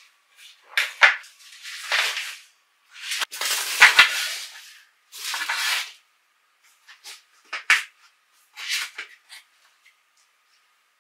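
Fabric folding bag rustling and flapping in irregular bursts as it is unfolded and its internal wire frame is raised into a square basket, with a sharp click about three seconds in.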